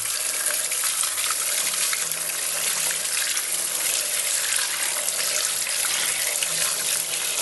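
Tap water running in a steady stream as salted crucian carp are rinsed under it, washing the salt out of the fish.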